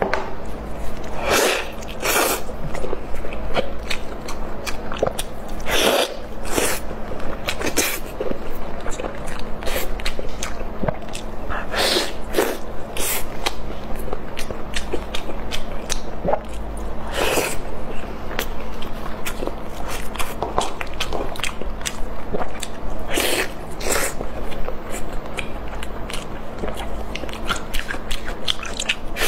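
Close-miked eating sounds of someone biting, tearing and chewing sauce-glazed lamb ribs, with irregular sharp wet mouth clicks.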